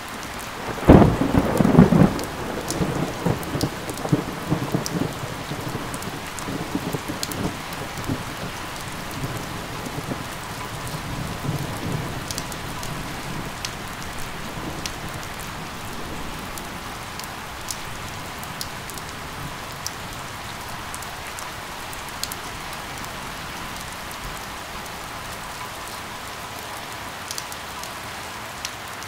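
Steady rain with a thunderclap about a second in, its low rumble rolling on and fading away over the next ten seconds or so, and scattered sharp drips.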